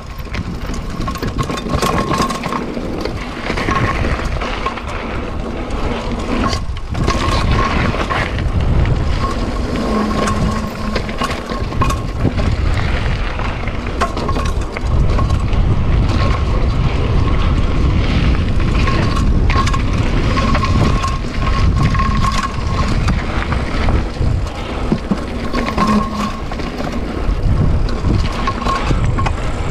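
Mountain bike descending a rocky, gravelly trail: tyres crunching over stones, with the bike rattling and knocking over bumps and wind buffeting the microphone as a steady low rumble.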